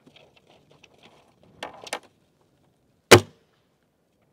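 Break-barrel air rifle firing a single pellet shot about three seconds in, one sharp crack. Before it, faint clicks and a couple of soft rustles as the shooter settles on the gun.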